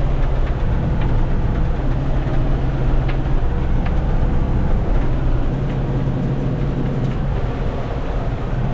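John Deere 6110 tractor's diesel engine running steadily, a low drone that eases off briefly a few seconds in and again near the end.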